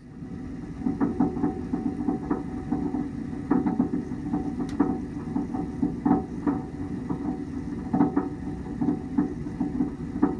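Four-year-old Buderus gas boiler running with a steady low rumble and irregular popping, like popping corn, several pops a second in uneven clusters. The popping has not been cured by flushing, purging, or checking the gas pressure and burners.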